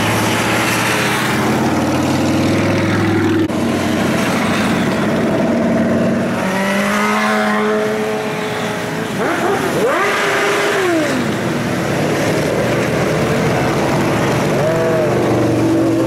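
Motorcycle engines running as a stream of bikes rides past close by, with several revs rising and falling in pitch, around six to eleven seconds in and again near the end.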